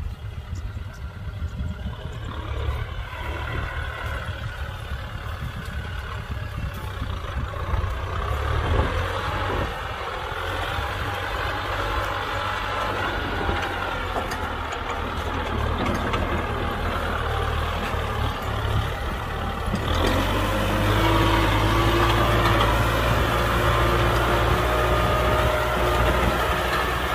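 Kubota M6040 SU tractor's diesel engine running while plowing, a steady low rumble with pitch that wavers up and down. About twenty seconds in it gets louder and holds at the higher level.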